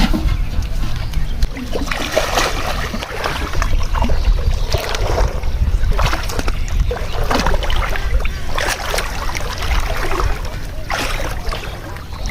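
Water splashing and sloshing in irregular surges, over a steady low rumble.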